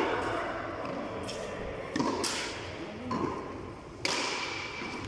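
A tennis ball struck by bare hands in frontón, slapping against the front wall and bouncing on the concrete floor during a rally: a string of sharp hits about a second apart, each ringing in the walled court.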